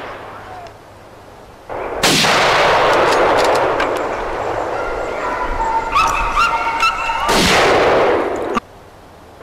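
Two gunshots fired at a running wild boar, about two seconds in and again near the end, each followed by a long noisy tail. Between them dogs give several short yelps.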